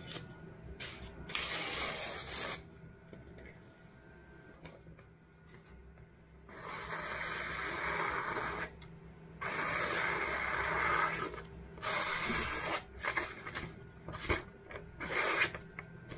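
Magazine paper being sliced with a kitchen knife and handled between cuts, giving rough hissing rasps of a second or two each, with small rustles and ticks between them: a paper-cutting test of the knife's edge.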